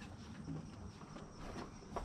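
Faint handling sounds of a rubber intercooler hose boot being worked by hand onto its charge-air pipe, over a low background rumble.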